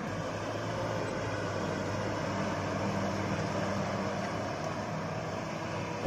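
A motor vehicle engine running steadily: a low, even hum under a wash of noise.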